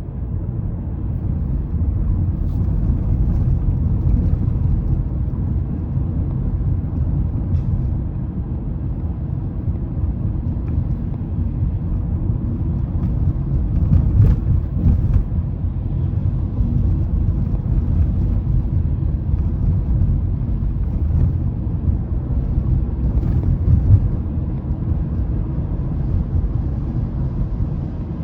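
A Mazda 3 driving at speed: a steady low rumble of engine and road noise, with a few faint ticks.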